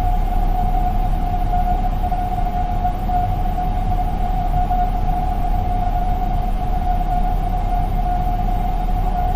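Airliner cabin noise: a steady jet-engine drone with a constant whine over a low rumble.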